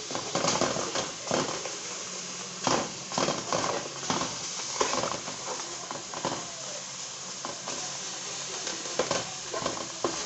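Sliced onion sizzling in a pan on the stove as it heats, with scattered knocks and scrapes of a utensil against the pan.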